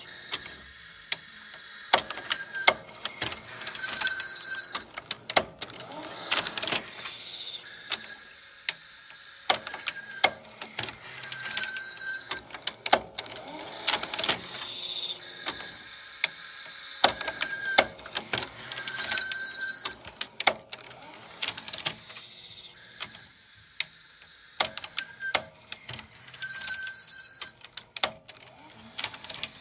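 Panasonic NV-FS200 VCR's tape mechanism clicking and squeaking over and over in a repeating cycle of about seven to eight seconds, with short high-pitched squeals among the clicks: the machine is failing to play the cassette.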